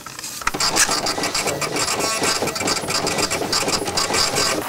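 A small machine chattering rapidly: a fast, steady run of mechanical clicks.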